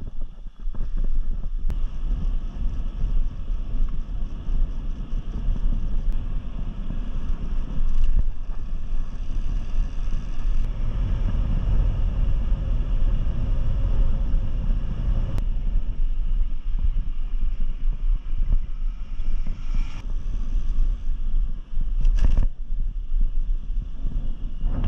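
Wind rushing over the microphone of a moving motorcycle, over the low rumble of its engine and tyres on the road. The sound is steady, with a few brief breaks, one near the start and one about 22 seconds in.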